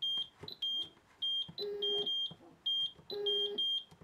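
Esaote Biomedica P80 electrocardiograph beeping as its keypad buttons are pressed: short high beeps about twice a second, with a lower buzzing tone coming in a few times.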